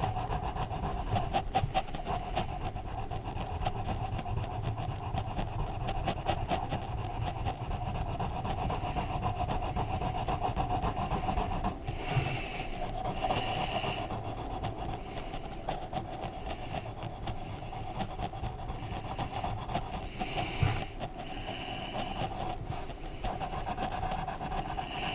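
Rapid back-and-forth scratching of colouring strokes on a colouring-book page, a dense run of short rubbing strokes, over a steady hum.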